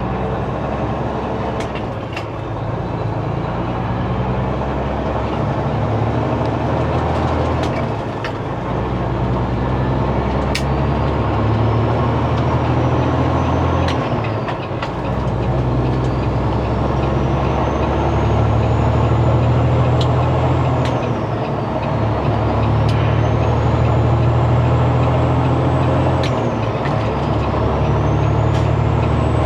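Semi-truck diesel engine with 8-inch exhaust stacks pulling hard up through the gears, the engine note breaking at each of about four shifts. A turbo whistle climbs in pitch through each gear and drops back at every shift. A few sharp clicks sound over it.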